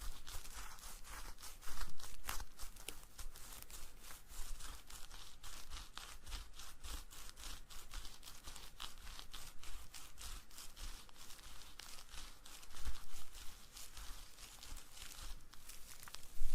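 Close-miked ASMR trigger sounds: a dense, crackly scratching and rustling made of many sharp little clicks, swelling louder about two seconds in and again near the end.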